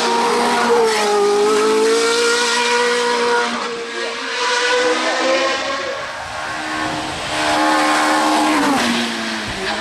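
Hill-climb race car engine running hard at high revs, its pitch dipping, rising again and then falling sharply near the end.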